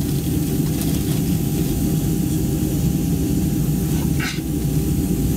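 Steady cabin noise inside a Boeing 737-300 airliner: an even low rumble with a thin, constant hum-tone above it.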